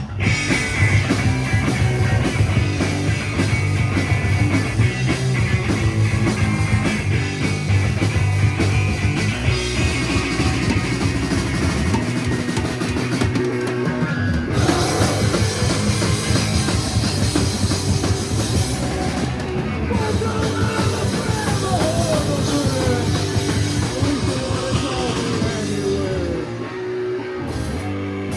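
Live rock band playing an instrumental passage, with drum kit, bass and electric guitar.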